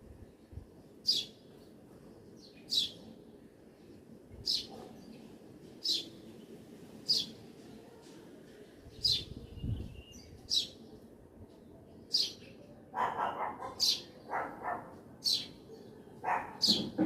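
A songbird repeating one short, high chirp about every second and a half. In the last few seconds, lower, rougher calls from another animal join in.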